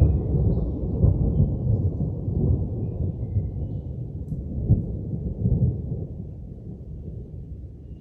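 Rolling thunder from a dry thunderstorm, with no rain: a low rumble that swells a few times and then dies away over the last few seconds.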